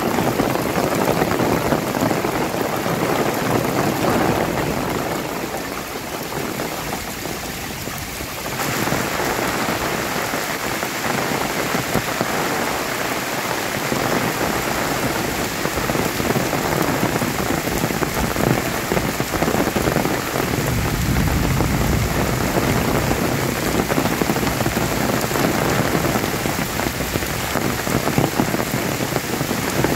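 Heavy rain pouring steadily onto trees and a paved road, a dense unbroken hiss of a monsoon-style downpour that grows fuller and a little louder about a third of the way in.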